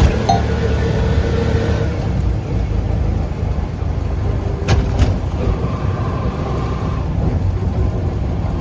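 Steady low rumble of a moving road vehicle, engine and road noise, with two sharp clicks a little under five seconds in.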